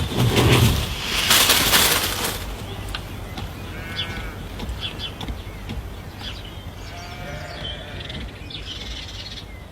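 A loud rustling, flapping-like noise for the first two seconds or so, then a bird calling a few times in short cries, about four seconds in, around seven seconds and again near the end.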